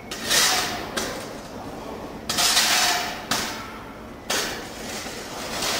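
Three abrupt bursts of hiss, each about a second long and roughly two seconds apart, against workshop background noise.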